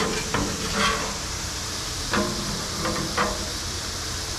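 Yellowtail snapper fillets sizzling steadily in hot oil on a steel flat-top griddle, with a few short scrapes of a metal spatula against the griddle surface as the fillets are turned, near the start and again about two and three seconds in.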